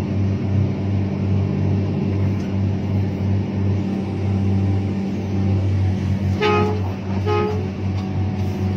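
Komatsu PC1250 excavator's diesel engine running with a steady drone, heard from inside the cab, while the loaded bucket swings and dumps. Two short horn toots, a little under a second apart, come near the end.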